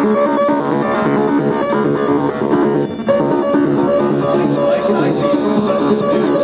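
Electronic noise music from circuit-bent gear played through a mixer and PA speaker: dense layers of short, repeating pitched tones, with a brief drop about three seconds in.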